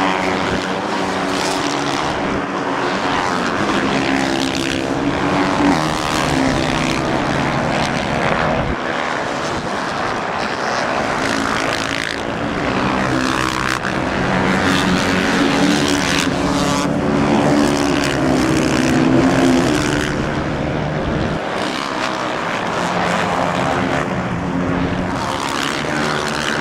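Several dirt-bike engines revving hard, the pitch rising and falling as the throttles open and close.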